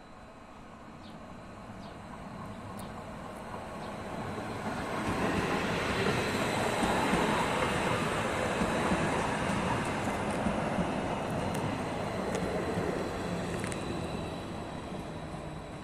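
Stadler FLIRT electric multiple unit running past along the platform track. Its rolling noise swells as it approaches, is loudest for several seconds as the cars pass, and fades near the end.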